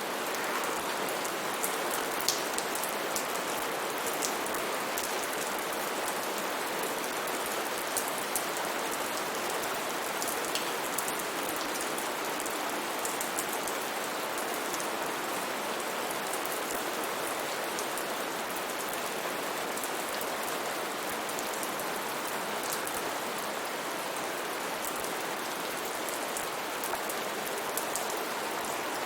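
Steady rain falling, with scattered distinct drops ticking sharply on a hard surface.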